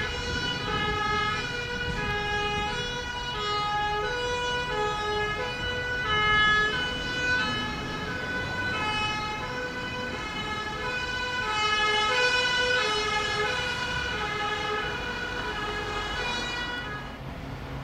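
Two-tone siren of a Scania fire engine on an emergency run, alternating steadily between a high and a low note, stopping shortly before the end.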